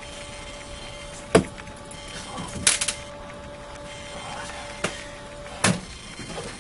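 Sharp clicks and knocks of hard plastic as a toy kitchen appliance's panel, buttons and door are handled, a handful in all, with a cluster about two and a half seconds in. A faint steady hum stops at the last click near the end.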